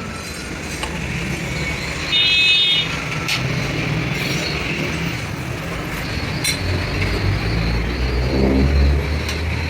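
Steady low mechanical rumble that swells in the second half, with a brief high tone about two seconds in and a few sharp metallic clicks.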